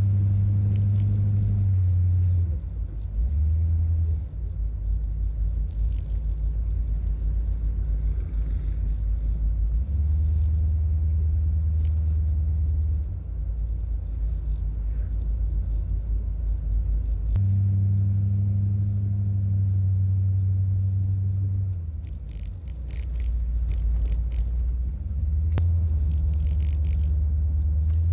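1981 Corvette driving, a steady low rumble from its engine and the road that swells and eases every few seconds as the car speeds up and slows.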